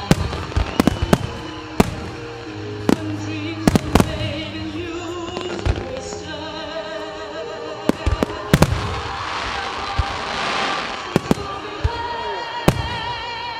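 Starmine fireworks display: shells bursting with sharp, irregularly spaced bangs, about a dozen in all, with music playing underneath and a spell of hiss partway through.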